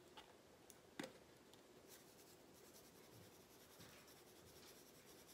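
Faint scratchy patter of dried seasoning shaken from a plastic Mrs. Dash shaker onto raw chicken thighs, with one light click about a second in.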